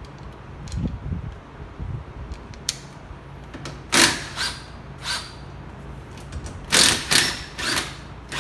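Hand tools working on a brake caliper's bolts: a few low knocks, then about seven short bursts of metallic clicking in the second half.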